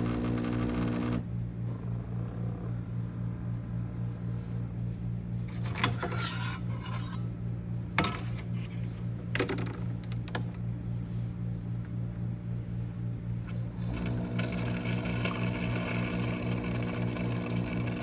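Breville Bambino Plus espresso machine making a low, pulsing buzz-hum after a shot has been pulled, the noise its owner is reporting as a fault. A few sharp clicks come in the middle, and the hum grows fuller in the last few seconds.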